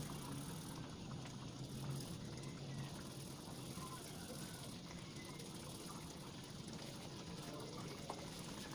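Sauce simmering faintly in a wok on the stove, a low steady sound.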